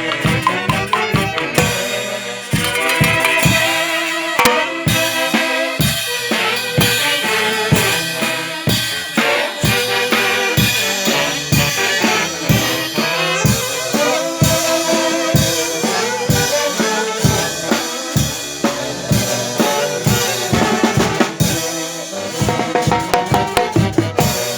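Band music with a drum kit keeping a steady beat of bass drum and snare under melodic instruments.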